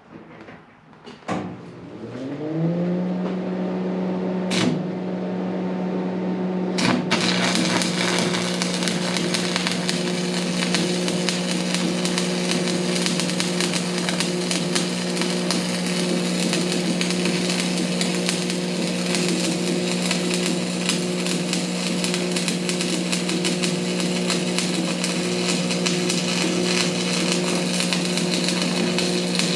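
An engine-driven welder starting up, its pitch rising as it comes up to speed and then running steadily. From about seven seconds in a stick-welding arc on 7018 rod crackles and sizzles continuously over the engine.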